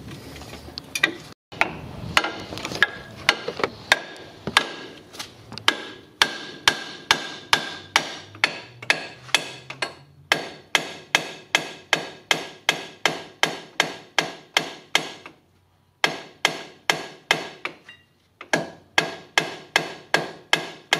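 Hammer striking a steel steering knuckle over and over, about two to three blows a second in runs broken by short pauses, each blow ringing. The blows are knocking a seized lower ball joint stud down out of the knuckle.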